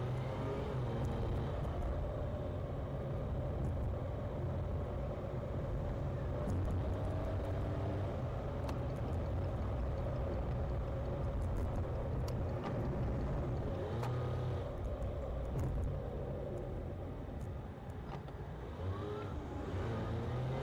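Car engine and road rumble heard from inside the cabin while driving, the engine note rising and falling with speed, dipping briefly and picking up again near the end.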